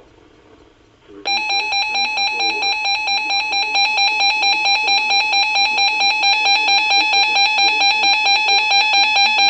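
Midland WR120 weather alert radio sounding its alert alarm, a loud pulsing electronic tone at about three pulses a second that starts about a second in after faint radio hiss. It signals a received severe thunderstorm warning.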